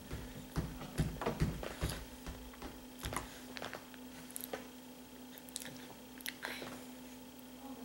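A toddler chewing while handling a spoon and fork at the table: scattered clicks and taps of the cutlery against the bowl and placemat, with a few dull thumps about a second in.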